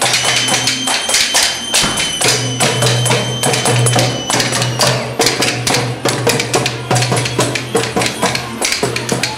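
Lively capra goat-dance music with fast, steady beats on a hand-held frame drum. A long high note is held over the first half.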